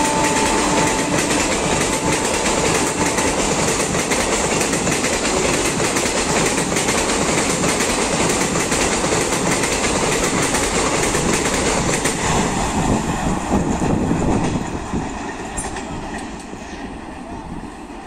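Passenger train's coaches rushing past at speed, wheels clattering over the rail joints. The tail of the WAP7 electric locomotive's horn fades out in the first second. The noise drops away about fifteen seconds in as the last coach passes.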